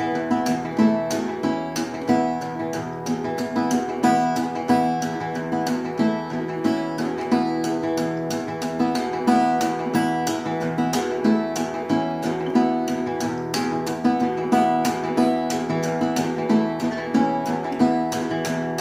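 A 1967 Martin 0-18 steel-string acoustic guitar fingerpicked in drop D tuning with a capo at the second fret: a steady, rhythmic stream of plucked notes over ringing low strings.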